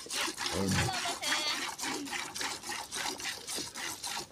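Hand-milking a cow into a steel bucket: milk squirting from the teats and hitting the pail in a quick, even rhythm of strokes, several a second. A brief low sound comes about half a second in.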